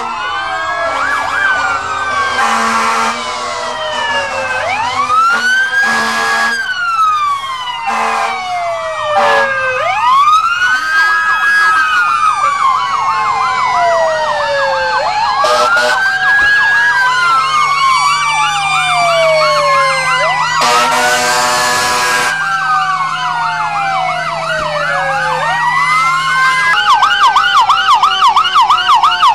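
Several fire-truck sirens wailing at once in overlapping rising and falling sweeps, cut by short air-horn blasts, one lasting over a second near the end. In the last few seconds one siren switches to a fast yelp.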